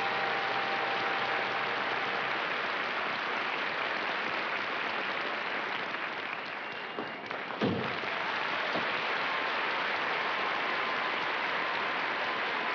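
Studio audience applauding steadily. The tail of the theme music fades out under it in the first couple of seconds, and there is a single thump a little past halfway.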